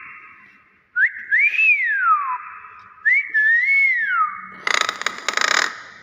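Hill myna whistling: two whistled phrases, each sliding up and then down, starting about a second in and about three seconds in. These are followed by a harsh, noisy burst lasting about a second.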